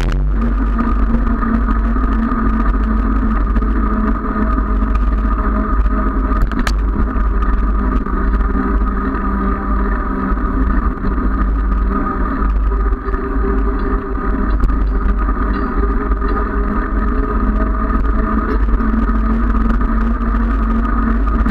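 Wind buffeting the microphone of a handlebar-mounted camera on a moving bicycle: a steady low rumble with a constant hum above it.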